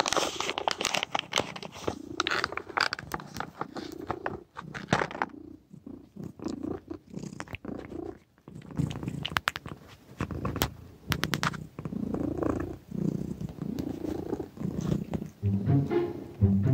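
A domestic cat purring close to the microphone in repeated swells, with a few sharp clicks around the middle. Music comes in near the end.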